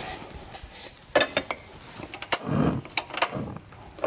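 A metal frying pan being handled and set down on a cooktop: a few sharp clinks and knocks about a second in, and another cluster about three seconds in.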